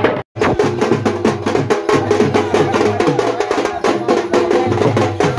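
Bundelkhandi Deewari folk music: fast, clacking drumming on a dhol with a held melody line over it. The sound cuts out for an instant just after the start.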